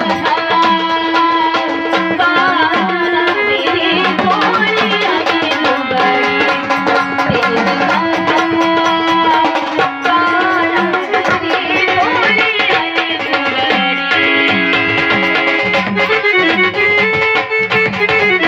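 Instrumental interlude of Indian folk music: a sustained melody instrument playing over a steady hand-drum rhythm, with no singing.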